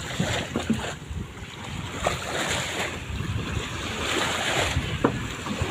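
Small waves washing onto a sandy shore and around a small outrigger boat, with wind rumbling on the microphone. A few light knocks sound, one near the middle and two near the end.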